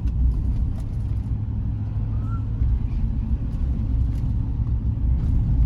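Vehicle driving on the road: a steady low rumble of road and engine noise.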